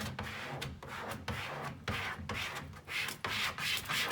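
A plastic card rubbed in repeated strokes over a vinyl sticker on a plastic wheelie bin, about two strokes a second, pressing the sticker down from the centre outwards.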